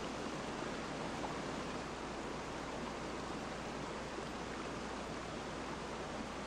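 Steady rushing of falling water, an even hiss that eases slightly over the course of the sound.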